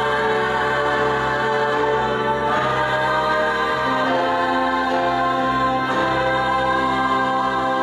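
Small mixed vocal ensemble of men and women singing a cappella in close harmony, holding sustained chords that shift every second or two.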